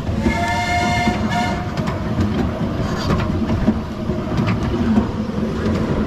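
Miniature railway train running on its track, heard from an open passenger car: a steady rumble with clicks of the wheels over the rails. The locomotive's whistle sounds once just after the start, lasting about a second and a half.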